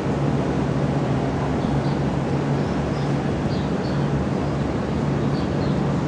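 Steady engine running with a constant low hum under an even noise, with faint short high chirps now and then.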